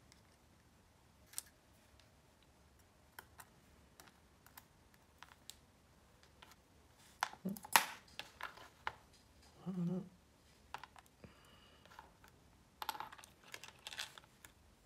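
Small metal lock parts and tools being handled at close range: irregular light clicks and taps, busiest about halfway through and again near the end.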